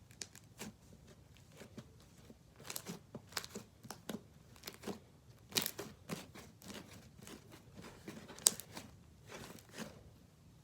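Slime worked in the hands, giving irregular crackling pops and clicks, the sharpest a little past eight seconds in.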